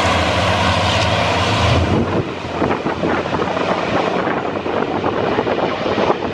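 Racing truck engines running loud past the track, a heavy steady drone that drops away about two seconds in, leaving a rougher, noisier background.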